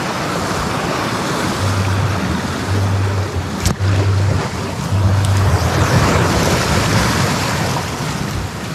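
Sea surf washing over a rocky shore, swelling and easing, with wind on the microphone and a single sharp click a little under halfway through.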